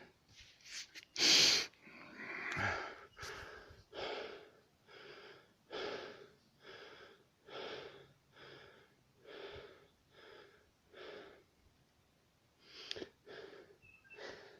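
A person breathing audibly in a regular rhythm. A sharp, loud intake comes about a second in, then a steady run of short breaths about one every second, a brief pause, and a few more breaths near the end.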